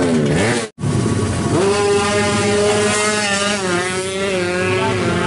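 Drag bike's single-cylinder engine revving in quick blips, cutting out abruptly just under a second in. It is running again from about a second and a half in, holding a steady fast idle with slight rises in pitch.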